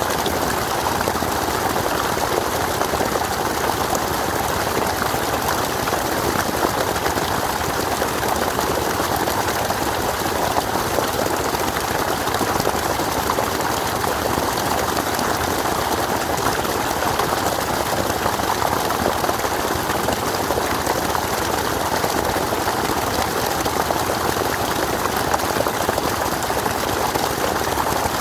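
Steady rushing of flowing water, an even noise that does not change.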